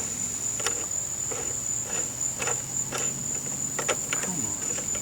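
Steady high-pitched drone of insects, with irregular light clicks and taps about every half second.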